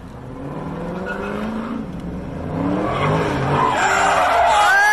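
Dodge Charger SRT's V8 revving hard, climbing in pitch, with its tyres breaking loose into a loud squeal over the last second or two as the car slides sideways.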